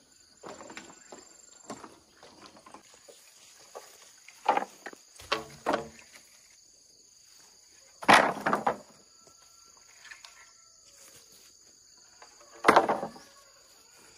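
A few loud knocks and scrapes at irregular intervals, the loudest two about 8 and 13 seconds in, over a steady high insect drone.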